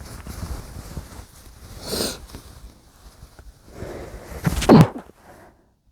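A man's muffled sneezes: a stifled one about two seconds in, then a breath in and a louder, voiced sneeze near the end.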